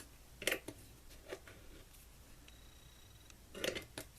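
An X-Acto knife scraping flashing off the edge of a freshly cut opening in an ammo can: a few short, light scrapes, one about half a second in, another just over a second in, and a longer run of scrapes near the end.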